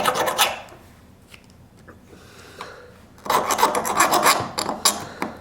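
Leatherman multi-tool file rasping in quick strokes across the cutting edge of an ION 10-inch ice auger blade, sharpening an edge dulled and nicked on mud and gravel and taking off the burrs. The filing breaks off after about half a second and starts again about three seconds in.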